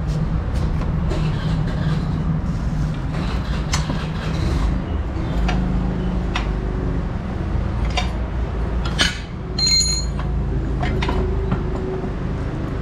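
Irregular metal clinks and knocks of parts and tools as a main stand is fitted to a Honda Activa scooter engine. A little after nine seconds in there is a brief ringing metallic tone. A steady low rumble runs underneath throughout.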